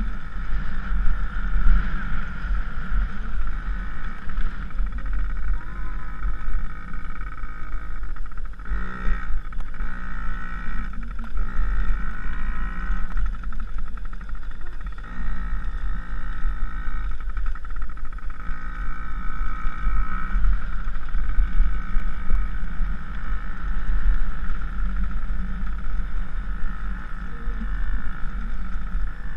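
Dirt bike engine running while riding over grass, its pitch rising and falling as the throttle is worked, most clearly in the middle stretch.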